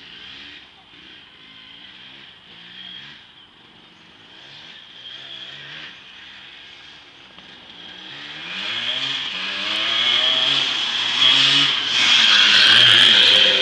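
Yamaha YT175 three-wheeler's ported single-cylinder two-stroke engine revving up and down as it is ridden around. It is faint at first and grows louder from about eight seconds in as the machine comes close.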